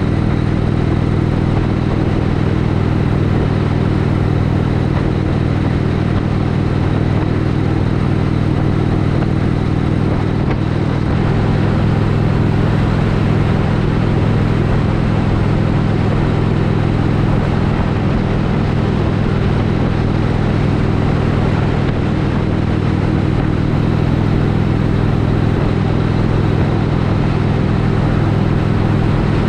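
Indian Chief Vintage's Thunder Stroke 111 V-twin running steadily at highway cruising speed, heard from the rider's seat with wind and road noise over it. The engine note shifts slightly twice, about eleven seconds in and again near the end.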